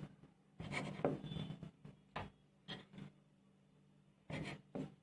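Dough pieces being pressed, cut and shaped on a board: a run of short scrapes and rubs, the longest cluster about a second in and a few more near the end.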